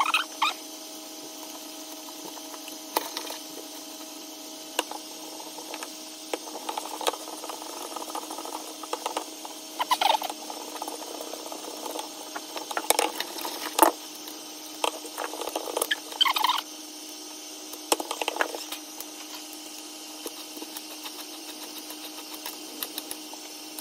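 Hand-winding 1.8 mm enamelled copper wire onto a ribbed 76 mm plastic pipe coil former on a wooden bench: irregular scrapes, clicks and taps as the wire is pulled round and the pipe is handled and turned. A steady hum runs underneath.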